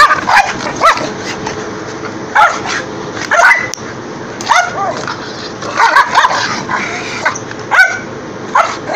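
Australian cattle dogs barking and yipping in excited play as they snap at a broom being swept at them. The short, high barks come about once a second, sometimes two or three close together.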